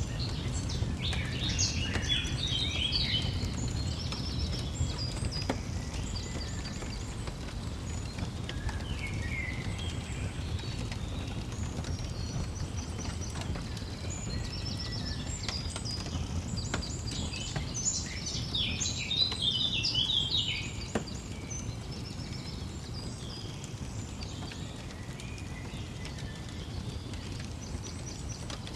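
Songbirds chirping and trilling in busy bursts, over a steady low rumble with occasional sharp crackling pops from a fireplace.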